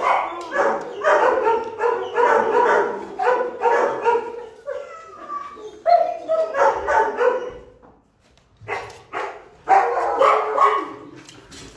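Shelter dogs barking in rapid, repeated series. The barking stops briefly about eight seconds in, then starts again.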